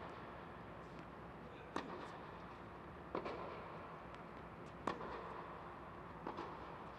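Tennis rally on an indoor hard court: a ball struck by rackets, with sharp pops about every one and a half seconds, four in all, each with a short echo off the hall.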